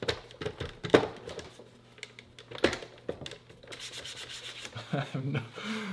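Plastic paper-shredder head being set onto its bin with two sharp knocks, then a cloth rubbing over its plastic top.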